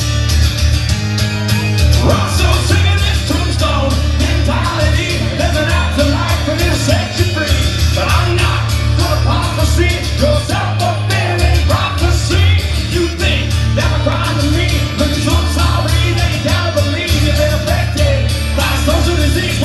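Live rock music: a band playing with a singer's voice over a heavy low end.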